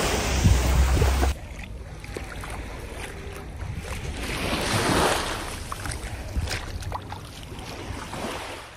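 Small waves washing onto a sandy beach, with wind rumbling on the microphone. About a second in the sound drops abruptly to a quieter wash of shallow water that swells about halfway through and then fades.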